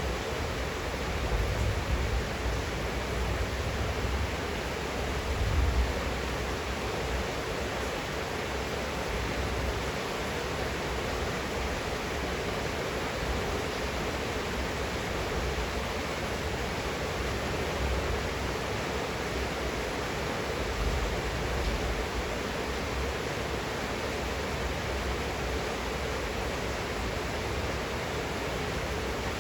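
Steady rain falling at night, heard from a window: an even, continuous hiss, with a low rumble swelling twice in the first six seconds.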